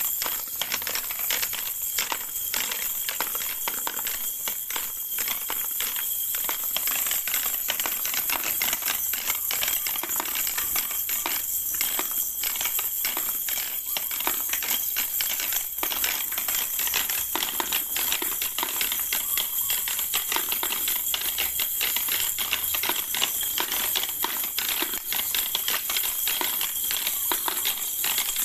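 Plastic balls rolling and clattering down the spiral ramps of a plastic ball-drop tower toy, a dense, unbroken run of small clicks and rattles.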